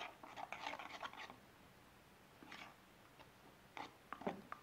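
A spoon stirring thick cornmeal hush puppy batter in a bowl: faint, irregular scraping and clicking against the bowl, thickest in the first second or so and again near the end.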